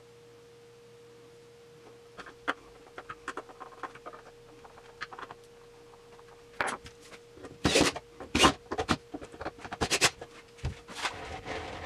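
Cordless drill-driver run in a few short bursts inside a plywood box, mostly in the second half, after light clicks and knocks of the wood being handled. A faint steady hum runs underneath.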